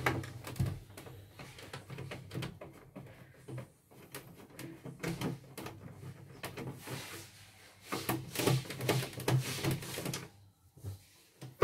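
Irregular clicks and knocks of a screwdriver and hands working on the plastic housing of a portable embroidery machine during disassembly.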